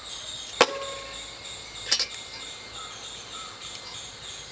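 Steady, pulsing chirring of insects, with two sharp knocks about a second and a half apart.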